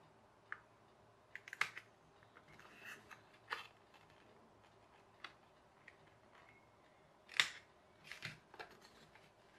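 Scissors making a few short snips through folded paper, with paper rustling as it is handled and a sharper click about seven seconds in.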